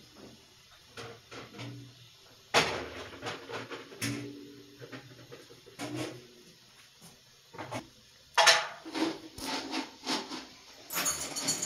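Irregular knocks, clatter and rubbing of kitchen things being handled, with a sharp clatter about two and a half seconds in and a busier run of knocks and scrapes from about eight seconds.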